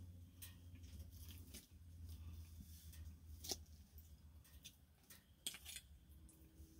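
Near silence with a faint low hum and a few soft clicks and scrapes of a fork on a plate as food is cut and picked up, the clearest about three and a half seconds in.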